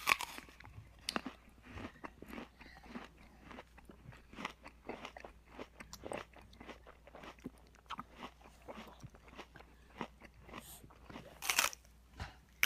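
A toddler chewing and munching food close to the microphone: a scatter of small wet clicks and smacks from the mouth. A brief louder noise comes about eleven and a half seconds in.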